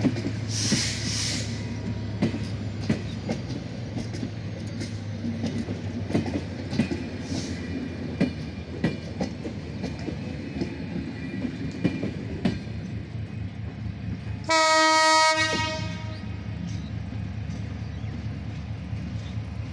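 Passenger train coaches rolling past close by, wheels clattering over rail joints with a steady low engine hum beneath and a brief hiss near the start. About two thirds of the way through, a train horn blows once for about a second, the loudest sound.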